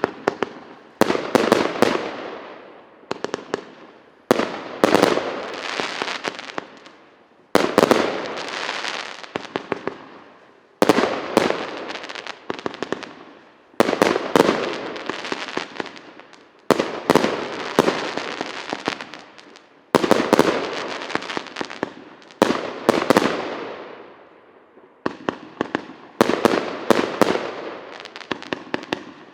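A 61-shot "Pyatnitsa" fireworks cake firing: clusters of sharp bangs every one to three seconds, each cluster trailing off before the next.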